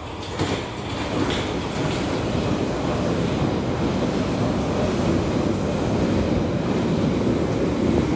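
London Underground 1973 Tube Stock train running alongside the platform. The steady rumble and rattle of its wheels on the rails builds up over the first second, then holds.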